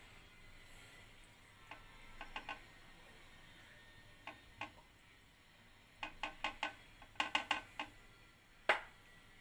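A steel spoon tapping and clinking against the dishes while vegetable filling is spread onto a slice of bread: a few scattered light taps, a quick run of about ten taps later on, and one sharper clink near the end.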